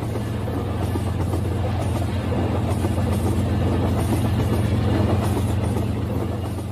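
Battery-powered toy train running along its track, a steady motor hum with running noise that grows louder as the locomotive and wagons pass close by, peaking about five seconds in, then easing off.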